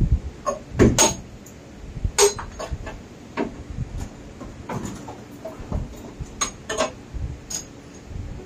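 Irregular metal clanks and clinks from tools and parts being handled against a bare steel car body, some ringing briefly; the loudest come about one and two seconds in.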